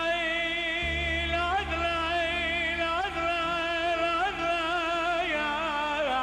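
A man singing a Kurdish song into a microphone in long held notes with ornamented turns, over a steady low accompaniment note that comes in about a second in.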